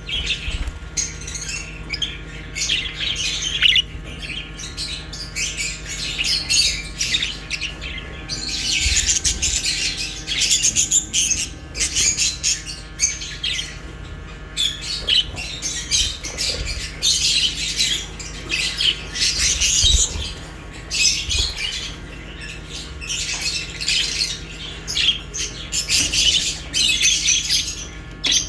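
Budgerigars and lovebirds chirping and chattering together, a continuous flock chatter with louder stretches of squawks.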